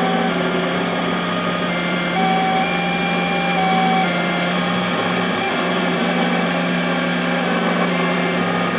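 XYZ da Vinci Mini W+ 3D printer printing: its motors whine in steady tones that jump between pitches every half second or so as the print head moves, over a steady low hum.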